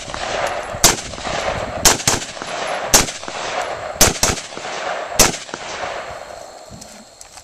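Rifle shots fired at a steady pace, about one a second, each followed by a long echoing tail. Five loud shots, then the firing stops a little after five seconds in.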